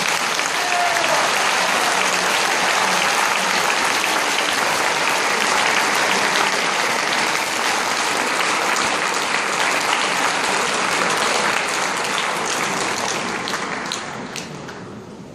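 Large audience applauding, steady and full, then dying away near the end.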